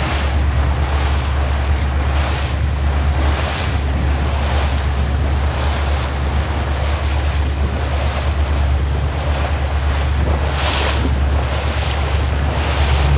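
Small motorboat cruising slowly: a steady low engine drone, with water washing against the hull in swells about every two-thirds of a second, and wind on the microphone.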